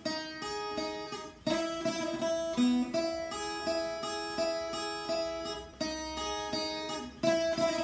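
Instrumental music: a plucked-string melody of short, clear notes in a steady rhythm.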